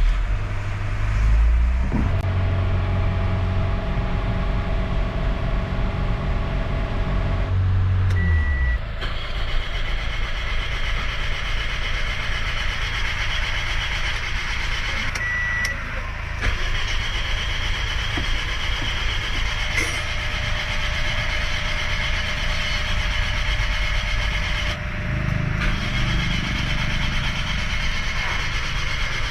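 Toyota Corolla Altis four-cylinder engine running at a high idle with no throttle applied, then dropping in pitch about eight seconds in and running on steadily. The racing idle, up to about 3,000 rpm after starting, goes with the car's hard starting and a P0340 camshaft position sensor fault code.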